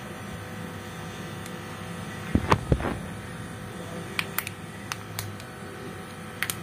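Water-filled plastic fish bag being handled: a short cluster of knocks and crinkles about two and a half seconds in, then scattered light clicks, over a steady electrical hum.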